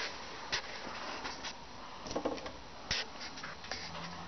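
A series of short clicks and knocks as a refrigerator door is opened and handled, with a brief rattle about two seconds in.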